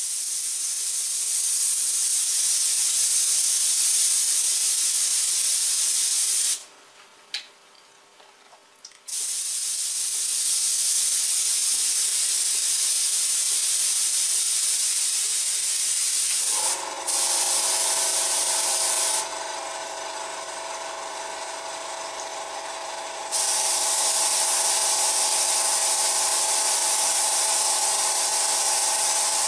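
Airbrush spraying paint with a steady hiss that stops and starts as the trigger is pressed and released, with one longer pause about a third of the way in. About halfway through, a small compressor motor starts up and keeps running with a steady hum under the hiss.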